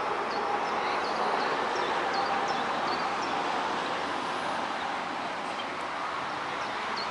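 Outdoor ambience on an open field: a steady broad hiss, with small birds chirping briefly and often overhead.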